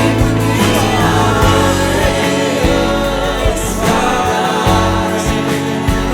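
Christian worship song: singing voices over instrumental backing with a bass line.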